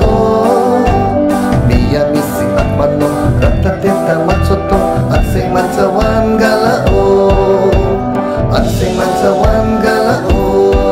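Garo Wangala song performed live through a PA: a male lead singer on microphone with a women's chorus, over instrumental accompaniment with a steady low beat.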